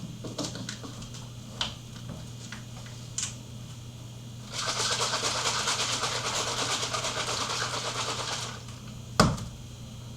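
A pitcher of Soylent powder and water shaken to mix it: rapid, even sloshing for about four seconds in the middle, after a few light clicks and knocks. Near the end there is a single sharp knock.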